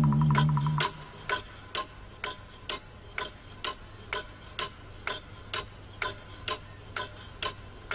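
Clock ticking steadily, about two ticks a second, after a held musical note dies away in the first second.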